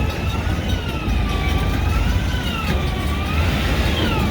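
Steady low vehicle rumble, with a thin high tone wavering irregularly up and down over it.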